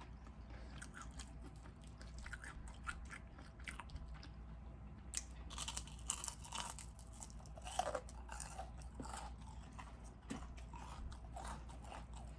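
A person chewing food close to the microphone, with scattered crisp crunches and wet mouth clicks. The crunching comes in a denser run about five to seven seconds in.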